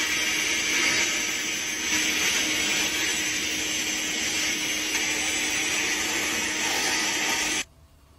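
Sandblasting gun blasting rust off a perforated metal stove plate: a loud, steady hiss of air and grit that cuts off abruptly near the end.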